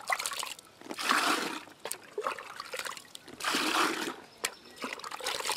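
Water poured and splashing into a plastic bucket of nettle infusion in several separate bursts, diluting the infusion with water for plant feed.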